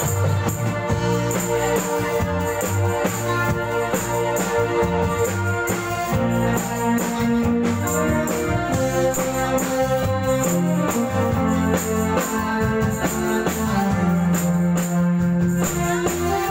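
Instrumental live band dance music with a steady beat, a moving bass line and sustained keyboard chords.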